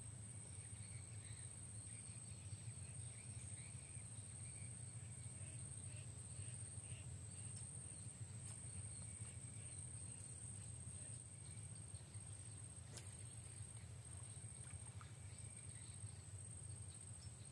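Quiet outdoor ambience: a steady high insect trill, scattered faint bird chirps and a low steady rumble, with a few faint sharp clicks, the clearest about thirteen seconds in.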